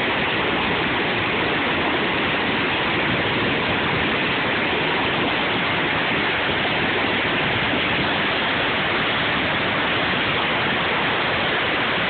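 Waterfall's whitewater rushing over rocks: a steady, even roar of water that does not change.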